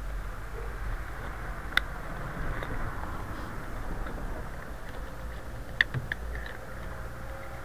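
Bike tools and a mini pump being handled and packed into a small bag: light clicks and rustles, with two sharp clicks, one about two seconds in and one near six seconds, over a steady low rumble.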